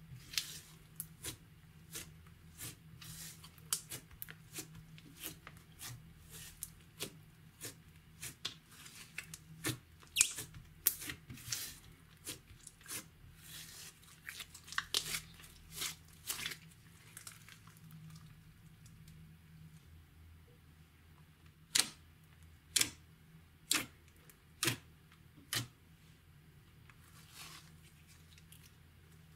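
Slime being handled for ASMR, giving a dense run of sticky pops and clicks that thins out partway through, then five louder single pops about a second apart.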